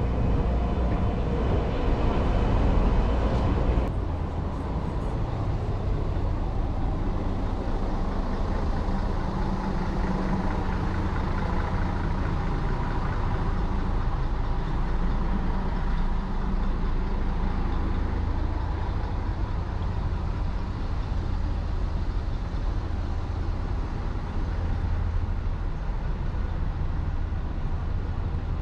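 City street traffic: a steady low rumble of passing vehicles, with an engine's steady hum over it that cuts off suddenly about four seconds in.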